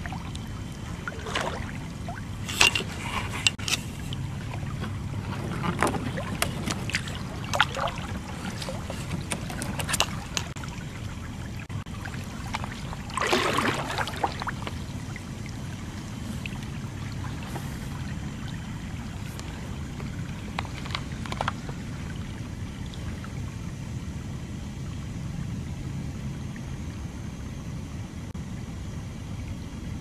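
A kayak being handled and paddled: scattered knocks and clicks against the hull and camera in the first ten seconds, and a longer scraping, splashing noise about 13 seconds in, over a steady low hum.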